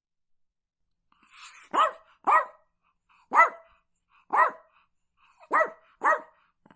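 A dog barking: six short barks after a silent first second, spaced about a second apart, with the second and the last coming close behind the one before.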